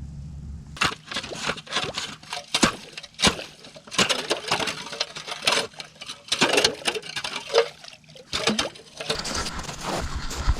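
Irregular rapid run of sharp cracks, knocks and clinks.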